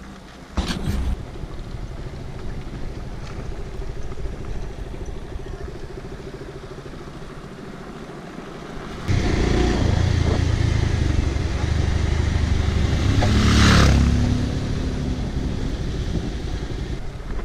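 Motorcycle engine running at low road speed, with rushing noise over the microphone. About nine seconds in the sound steps up to a louder, heavier rumble that peaks about fourteen seconds in, then eases.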